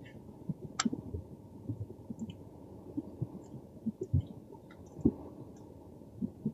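Low, steady rumble inside a car, with scattered soft knocks and a few sharp clicks, the loudest click about a second in.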